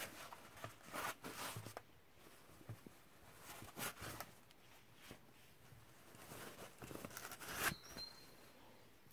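Plastic poly mailer bag and padded kraft envelope rustling and crinkling in several short bursts as the envelope is slid into the mailer, the loudest near the end.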